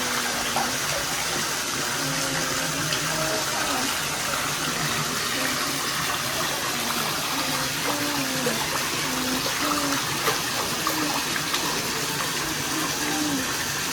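Hot spring water pouring and splashing steadily, as from a tap into a bathing tub, with faint voices in the background. It cuts off suddenly at the end.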